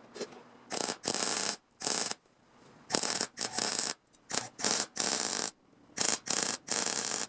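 A welder making a series of short tack welds on sheet-metal panels: about a dozen bursts of crackling hiss, each under a second, starting and stopping abruptly with brief gaps between them.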